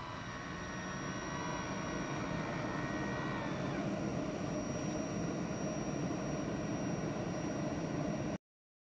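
Maxxair MaxxFan roof vent's motorised lid whining as it lifts open over the first three and a half seconds or so, over a steady mechanical drone; the sound cuts off abruptly near the end.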